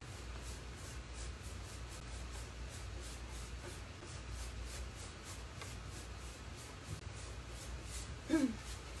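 Synthetic paintbrush brushing wet chalk paint back and forth over an oak cabinet door, a soft, steady rubbing swish over a low hum. Near the end comes a brief falling vocal hum.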